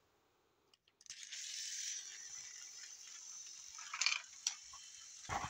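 Tomy Tomyville toy train's small electric motor and gears whirring steadily as it runs along plastic track, starting about a second in. A few clicks come near the middle, and a knock near the end.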